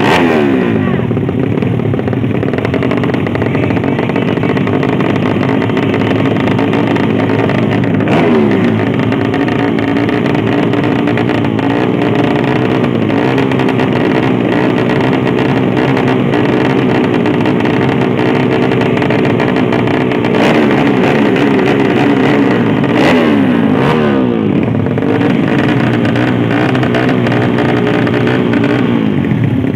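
Drag-racing motorcycle engines running hard and revving. The pitch falls away several times as the throttle is released.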